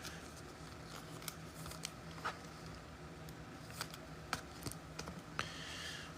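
Faint, scattered clicks and taps of trading cards being handled, about five sharp ones spread through, with a soft rustle near the end.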